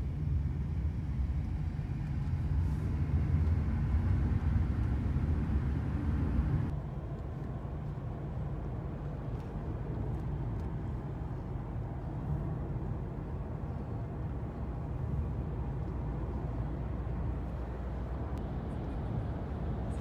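Road and engine noise heard inside a moving car's cabin: a steady low rumble, which turns quieter and duller about seven seconds in.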